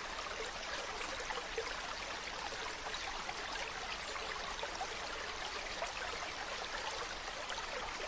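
Water running steadily, a continuous rush full of small trickles and splashes.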